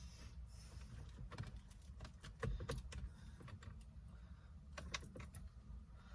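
Faint scattered clicks and light knocks of tools and small parts being handled, a few in quick succession about halfway through and again near the end, over a low steady hum.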